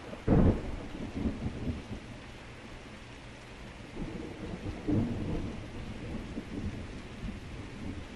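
Thunder over steady heavy rain: a sudden loud clap about a third of a second in that rolls into deep rumbling, swelling again around four to five seconds in before slowly dying away.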